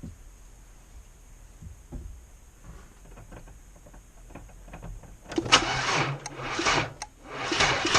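A few faint clicks, then about five seconds in a Chevy S10 Blazer's 4.3-litre V6 is cranked by its starter in several uneven surges and catches right at the end. It is a brief test start after oil cooler line work.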